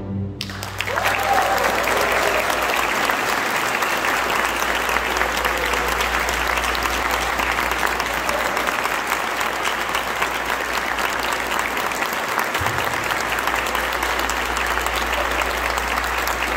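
Audience applauding steadily at the close of a live string orchestra piece, starting about half a second in as the orchestra's last chord dies away.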